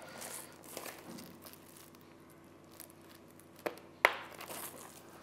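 Plastic snap-on button of a Beetle Diffuser Pro macro flash diffuser being pressed home: light rustle of the plastic panels being handled, then two sharp clicks a little under four seconds in, the second louder, as the button locks into place.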